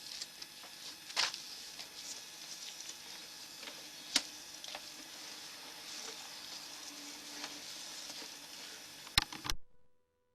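Steady rustling hiss with a few sharp clicks as a drain inspection camera's push-rod cable is pulled back by hand. The sound cuts off suddenly about nine and a half seconds in, and a faint steady electronic tone takes over.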